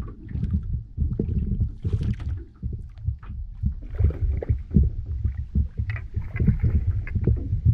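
Wind rumbling on the microphone and water slapping against a small boat's hull, with splashing from a hooked trout thrashing at the surface as it is drawn toward a landing net. The splashing grows busier about halfway through.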